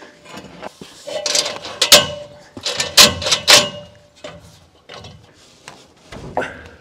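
Wood and metal knocking and clattering on roof-truss framing: a cluster of sharp knocks from about one to four seconds in, then a few fainter taps.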